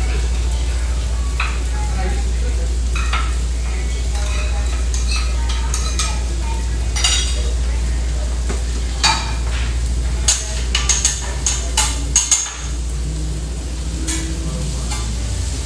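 Food sizzling on a restaurant flat-top griddle over a steady low kitchen hum, with sharp clanks and clicks of utensils and dishes, thickest from about nine to twelve and a half seconds in.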